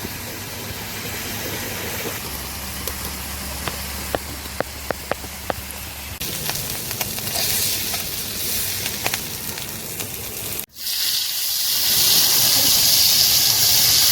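White pomfret fish frying in coconut oil on a hot stone griddle: steady sizzling with a quick run of crackles in the middle, breaking off suddenly about ten and a half seconds in and then coming back louder.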